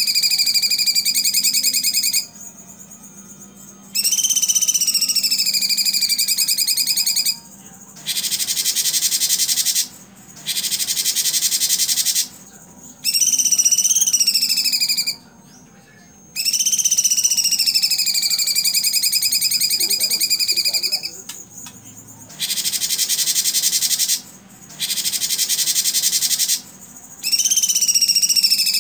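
Cucak cungkok singing loud, repeated phrases. Each phrase is either a long whistled note that sweeps up and down and then holds steady, or a rapid rattling burst of 'tembakan' notes, with brief pauses in between. A faint steady hum runs underneath.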